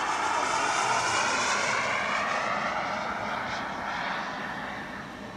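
Radio-controlled model F-104 Starfighter jet flying past: its engine whine and rush are loudest about a second in, then fade as it flies away, the pitch sliding downward.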